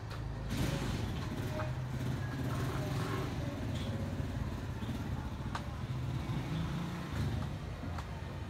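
Steady low hum of a motor vehicle engine running nearby, with light rubbing and a few small clicks from a soapy sponge being scrubbed over a scooter's plastic body panels.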